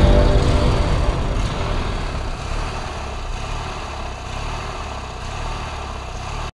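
Lawn tractor's Briggs & Stratton 19.5 hp twin-cylinder engine running steadily, fading gradually and cutting off near the end.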